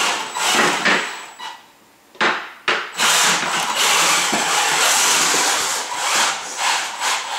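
Combat robot's electric drive motors and wheels running on a tiled floor: short rough bursts of driving at first, then steady running from about three seconds in.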